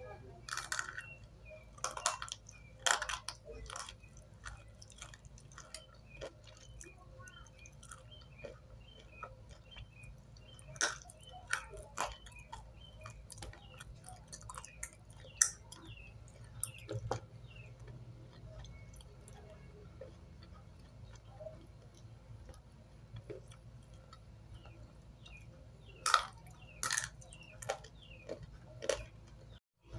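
Biting and chewing dry white clay chalk close to the mouth: irregular crisp crunches and clicks in clusters, loudest near the start and again near the end.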